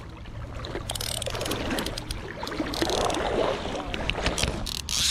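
River water rushing and splashing around a wading angler, with scattered sharp clicks and handling noise as a fly reel is cranked in by hand.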